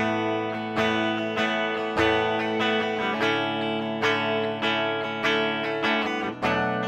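Lavish XG-1G electric guitar played on its bridge humbucker, clean tone: chords struck about twice a second, each ringing into the next.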